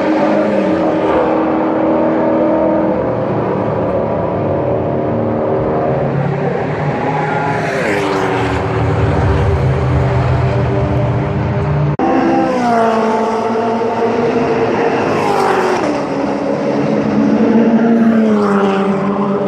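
Race car engines running hard on the circuit, loud throughout. The engine pitch drops sharply about four times as cars pass or shift gear.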